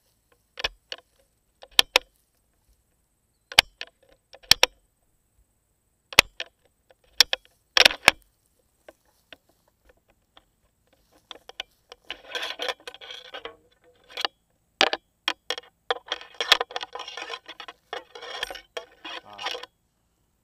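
Handling noise on the rifle-mounted camera: a string of sharp clicks and knocks, then, about twelve seconds in, several seconds of dense rattling and clattering.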